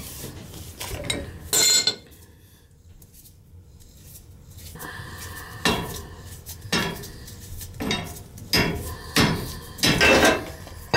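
Steel wrench clanking and ringing against a gas-pipe union while working to loosen it, a tight fitting that may need a bigger wrench. One loud metallic clank about two seconds in, then a quieter stretch, then a run of clanks close together over the second half.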